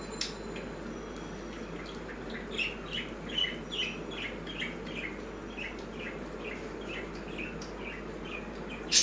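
Pet birds chirping in a quick run of short, high chirps, a few a second, fading toward the end, over a steady low hum. A single sharp click near the end is the loudest sound.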